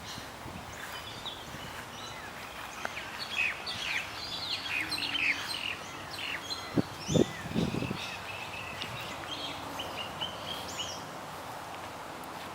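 Birds chirping and calling in short, quick notes, several at once. A few dull thumps about seven seconds in are the loudest sounds.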